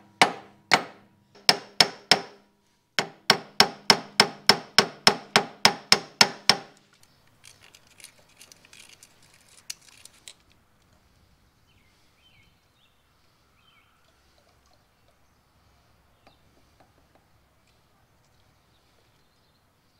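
Hand hammer striking the steel wheel hub of a forklift, each blow clanging and ringing: a few blows, then a steady run of about a dozen at three or four a second. The hammering is to knock the axle loose so it can be pulled. Then, briefly, a faint scraping of a pick tool on the hub.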